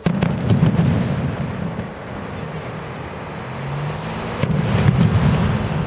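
Aerial fireworks bursting: a sudden loud bang with quick cracks, rolling into a low rumble, and another cluster of bangs about four and a half seconds in.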